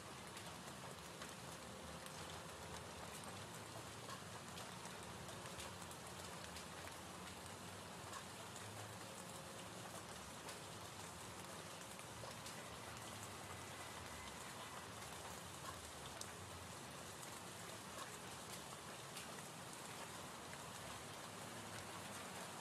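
Faint, steady gentle rain ambience: an even hiss with scattered light drop taps.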